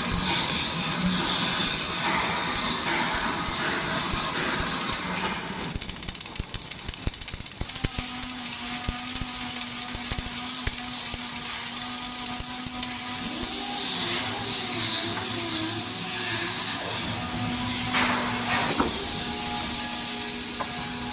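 Flux-cored arc welding on a steel I-beam: a steady crackling hiss. A steady machine hum joins about a third of the way in.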